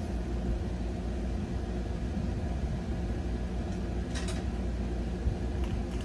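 Steady low machine hum, with one short hiss about four seconds in.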